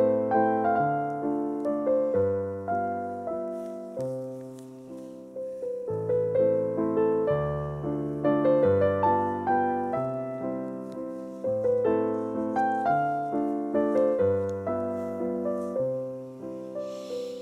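Background piano music: a gentle melody of struck notes that ring and fade, over slow low bass notes.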